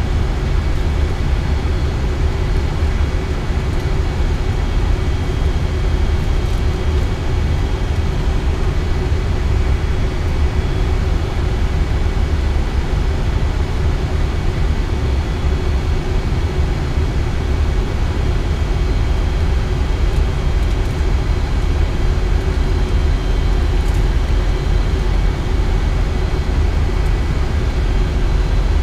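Steady in-flight noise on an Airbus A320 flight deck during descent: a deep, even rumble with a faint steady hum and a few thin tones above it.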